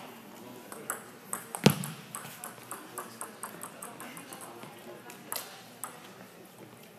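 Badminton rackets striking shuttlecocks in a sports hall: one loud sharp hit about a second and a half in, followed by a quick run of lighter clicks.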